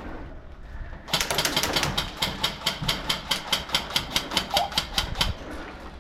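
Airsoft gun firing a rapid string of shots, about five a second, starting about a second in and lasting roughly four seconds.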